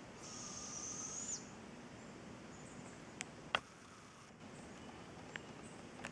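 Juvenile northern spotted owl giving its begging call: one raspy, high whistle lasting about a second that flicks upward as it ends. A couple of sharp clicks follow a few seconds later, the louder one about halfway through.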